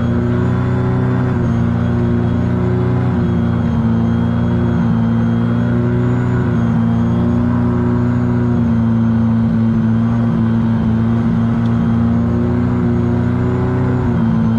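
The Wankel rotary engine of a Schleicher ASG 32 Mi self-launching glider runs loud and steady at climb power, heard from inside the cockpit. The on-screen captions call it faltering, with thrust dropping, shortly before it quits.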